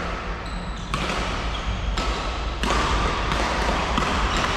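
Badminton rally in a large hall: rackets striking the shuttlecock in several sharp hits, roughly one a second, echoing over a steady low rumble.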